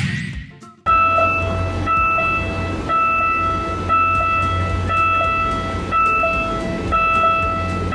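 Japanese railroad crossing alarm ringing its repeating "kan kan" bell tone, over the steady low rumble of a train running past. It starts abruptly about a second in.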